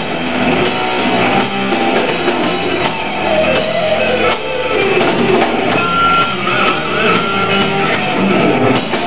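Thrash metal band playing live, with electric guitar to the fore over a dense, steady wall of sound.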